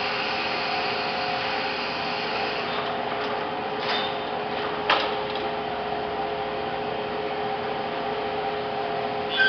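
Steady running noise of an enamelling furnace for cast iron baths, with a constant hum through it and two short knocks about four and five seconds in.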